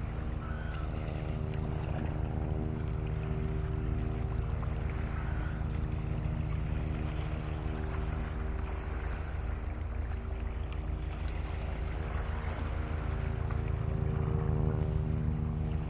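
An engine running at a steady speed: an even, unbroken hum with a faint rushing noise beneath it.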